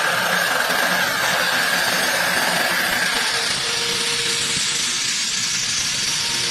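CNC milling machine's end mill cutting, a steady noisy hiss with a high-pitched whine that fades about halfway through.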